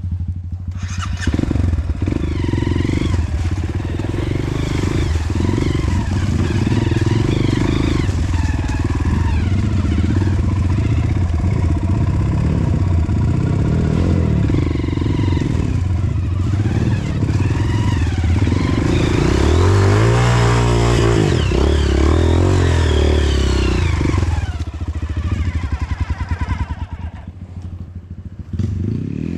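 Honda CRF150L trail bike's single-cylinder four-stroke engine running under load, revving up and down as the throttle is worked. It eases off briefly twice near the end.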